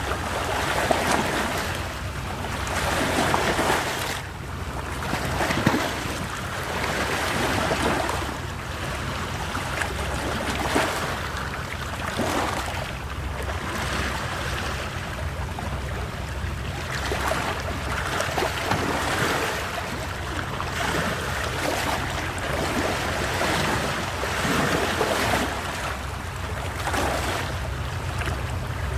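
Sea waves washing onto the shore, a continuous rush that swells and falls back every few seconds, with wind rumbling on the microphone.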